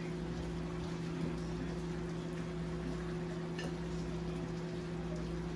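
Pot of curry chicken simmering on the stove, a soft bubbling over a steady low hum.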